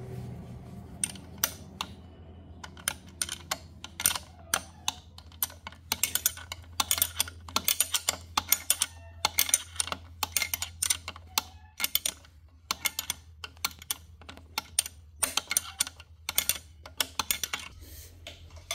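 Quick, irregular metal clicks and taps of a combination spanner working a nut on an engine-mount bracket, coming in rapid clusters.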